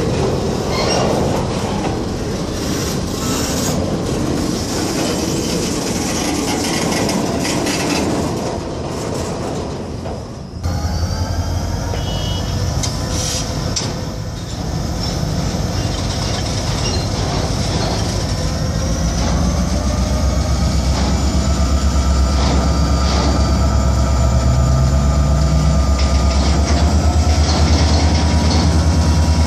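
Freight hopper cars rolling slowly past on jointed rail: wheels clacking over the rail joints, with squealing and creaking under the weight. About ten seconds in the sound changes abruptly to thin, steady squeal tones over a low rumble that builds toward the end.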